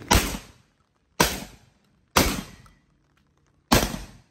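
Four shots from a Sulun Tac-12 semi-automatic 12-gauge shotgun, about a second apart with a slightly longer pause before the last. Each is a sharp blast with a short decaying tail.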